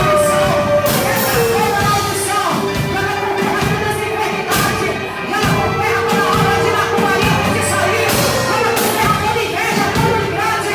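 Live worship band playing a song with singing over a steady drum beat.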